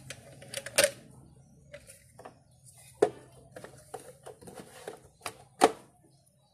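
Irregular plastic clicks and knocks as hands handle a mini sewing machine and set the fabric in place, not the machine stitching; the loudest knocks come about a second in, at three seconds, and near the end.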